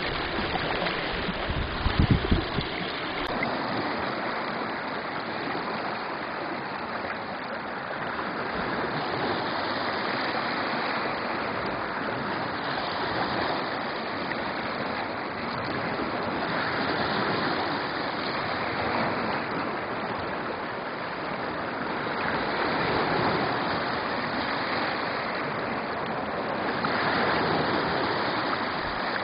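Shallow stream running over stones, a steady rush of water that swells and eases every few seconds. In the first few seconds, small lake waves wash onto the beach with wind buffeting the microphone, cut off by a click.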